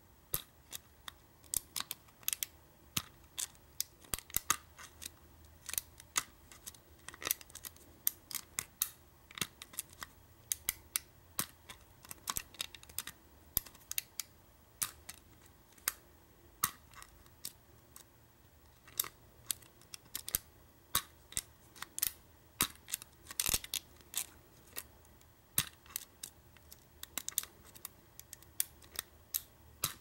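Hook pick and tension wrench working the pins inside a Schlage deadbolt cylinder: a steady run of small, irregular metallic clicks and ticks, several a second.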